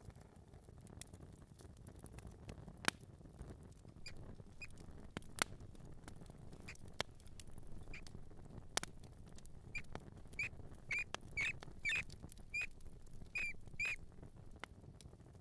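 Mouse squeaks: short, high chirps, a few scattered early on and then coming quickly one after another in the last few seconds, with light pattering and a few sharp clicks in between.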